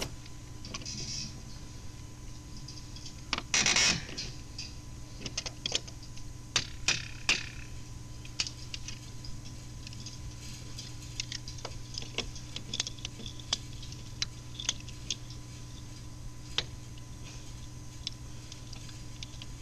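Scattered metal clicks and taps of a pipe wrench working on an old valve and galvanized pipe fittings, with a louder clatter about three and a half seconds in, over a steady low hum.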